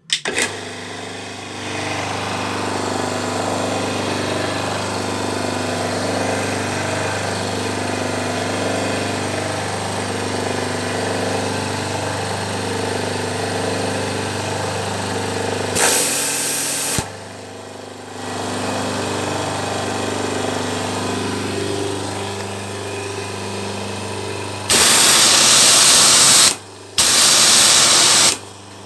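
Electric high-pressure washer starting up and running with a steady motor hum and pulsing pump. A loud spray hiss comes briefly about halfway through, and the motor drops out for about a second before running again. Near the end the spray gun fires in two long bursts of loud hiss.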